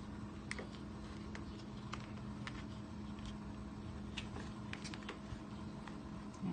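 Faint, irregular light clicks and ticks as a vinyl trim insert is pushed into an RV trim channel with a plastic putty knife, over a steady low hum.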